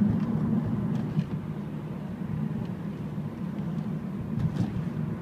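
A car's engine and tyre drone heard inside the cabin while driving, steady and low, easing a little in the middle and building again near the end.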